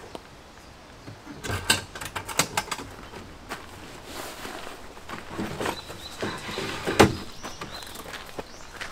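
Camping gear being handled at the open rear door of a Land Rover Defender: rustling of a padded bag and scattered light knocks and clunks. The sharpest knock comes about seven seconds in, as a bag is set down on the drop-down table fixed to the inside of the door.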